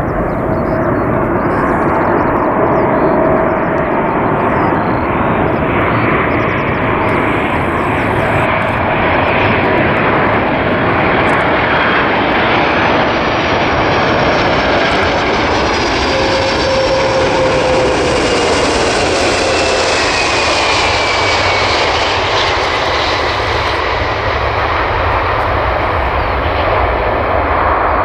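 Boeing 747-400F's four Rolls-Royce RB211 turbofan engines running loud as the freighter lands and passes. The whine builds to its strongest about two-thirds of the way in, with the engine tones falling in pitch as it goes by, then eases off.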